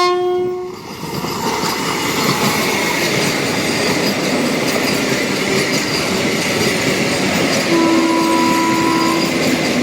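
An Indian Railways express train passes with a steady loud rumble of wheels on rails. Its horn ends a blast just as this begins and sounds again about eight seconds in, a held tone lasting about a second and a half.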